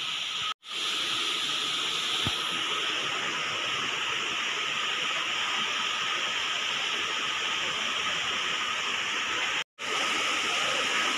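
Steady rush of falling water from a waterfall, a constant even hiss, cut off briefly twice: about half a second in and near the end.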